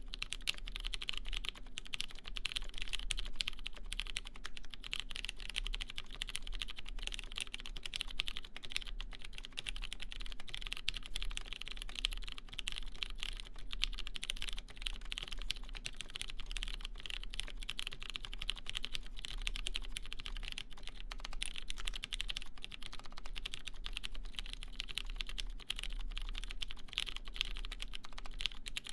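Continuous fast typing on a custom mechanical keyboard with lubed Cherry MX Clear tactile switches in a brass half plate, under GMK doubleshot ABS keycaps: a dense, steady run of key clicks and bottom-outs. A faint low hum runs underneath.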